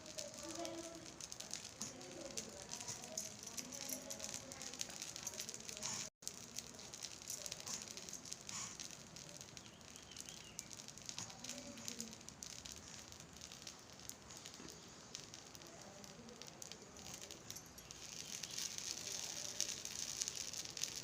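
Small fire of smouldering dried cow-dung cake crackling and popping steadily, with many fine ticks, as the smoke remedy burns. The crackling grows denser and louder near the end.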